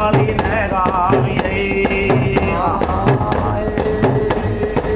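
Men singing a Rajasthani devotional bhajan to a fast, steady clacking of hand-held wooden kartal clappers, about four or five clacks a second, with a small frame drum.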